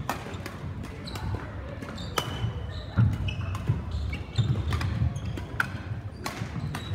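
Badminton play on an indoor court: irregular sharp racket-on-shuttlecock hits, short shoe squeaks and low thuds of footfalls on the court floor.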